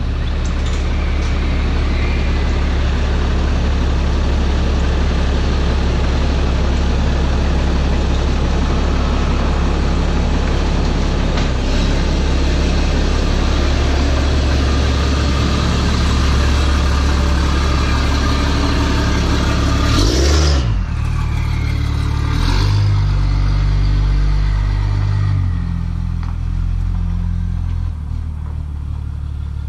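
Pickup truck engine running with a deep, steady hum. About two-thirds of the way through it swells sharply and its note shifts as the truck drives off, easing toward the end.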